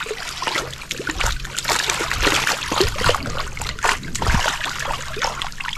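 Water splashing and dripping with irregular knocks and rustles, as a fish trap full of fish is handled in the water.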